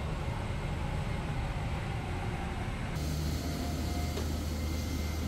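Steady background noise of an airport apron: a low hum under a broad rush. About three seconds in the hum becomes stronger and steadier and more hiss comes in.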